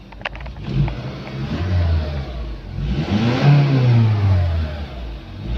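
Honda CR-V engine being free-revved: a short rise about a second in, then a bigger rev that climbs about three seconds in and sinks back toward idle near the end. It is revved after a metal-treatment additive, and now reaches about 6,000 rpm.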